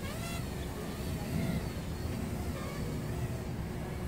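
Small brushless racing quadcopter (KingKong Fly Egg 130, 1105 7000KV motors) flying with its motors whining, the pitch swooping up and down as the throttle changes, over a steady low rumble of traffic and wind.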